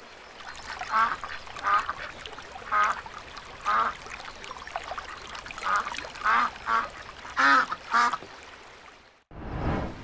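Ducks quacking: about nine short quacks in an uneven series. Just before the end there is a brief rush of noise.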